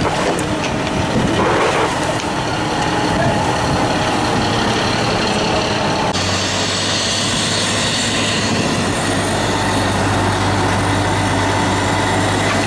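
Fire engine's diesel engine running steadily at pump to supply charged hose lines, a steady drone under a rushing noise. About six seconds in the sound shifts and a stronger low hum comes in.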